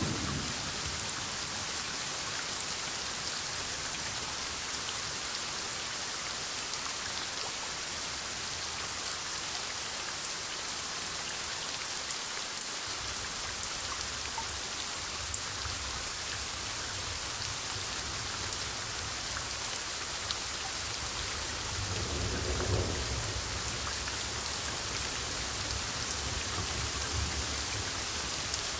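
Heavy rain falling steadily during a thunderstorm. A low roll of thunder comes in around two-thirds of the way through.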